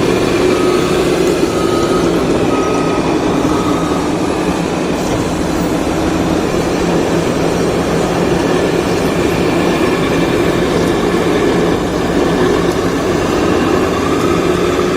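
A motor or engine running steadily, its hum drifting in pitch and rising again near the end.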